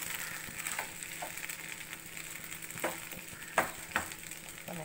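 A spatula stirring broken-wheat upma in a nonstick pan, scraping through the grains over a faint steady sizzle, with three sharper scrapes against the pan in the second half.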